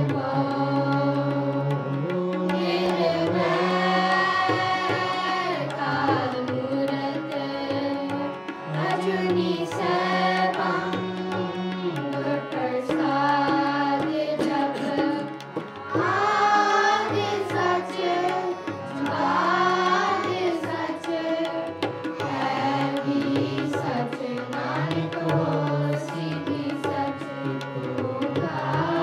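Sikh kirtan: a devotional hymn sung to harmoniums, with a tabla pair playing a steady rhythm beneath the singing.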